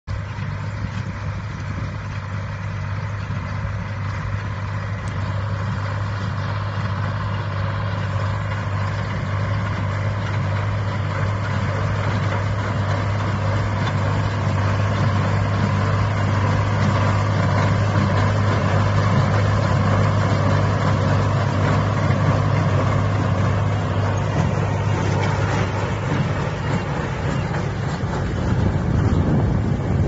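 Tractor engine running steadily under load as it pulls a working RXYK0910 round baler through straw. The hum grows louder about halfway through as the rig comes close, then eases off.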